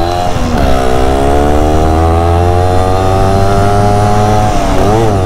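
Yamaha RX100's two-stroke single-cylinder engine running under way, its revs climbing slowly. The pitch dips briefly twice, once near the start and once near the end.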